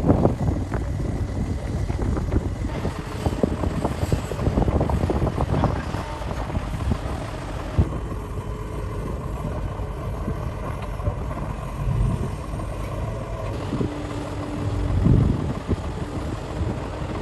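Cat 6015B hydraulic mining excavator working, its diesel engine running steadily under heavy wind buffeting on the microphone. A steady hum joins near the end.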